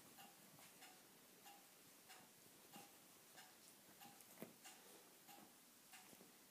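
Faint, regular ticking, about three ticks every two seconds, each tick with a short high ring, and one louder single knock a little past the middle.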